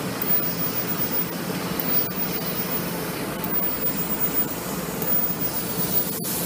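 CNC laser cutter running as it cuts black ABS plastic sheet: a steady machine hum and hiss.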